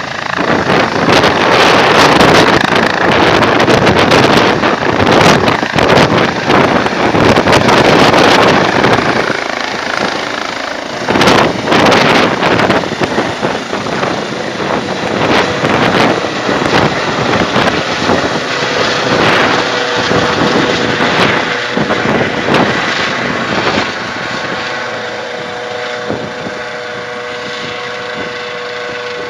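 Helicopter taking off: loud rotor noise with downwash buffeting the microphone, easing after about ten seconds, with a steady whine coming through in the second half.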